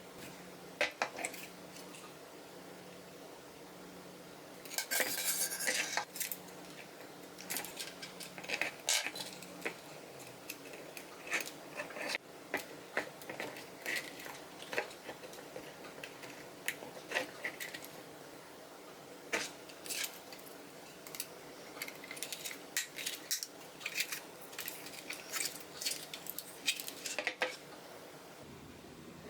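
Irregular clicks, taps and clatters of small hard plastic parts and tools being handled while a cordless stick vacuum is taken apart, with a denser rattling clatter about five seconds in. A faint steady hum underlies the first ten seconds.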